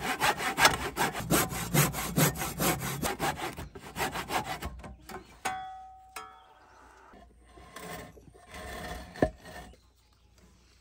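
Handsaw cutting wire hardware cloth against a wooden board, in quick back-and-forth strokes for about the first five seconds. Then two short ringing tones, some softer rustling and a single thump about nine seconds in.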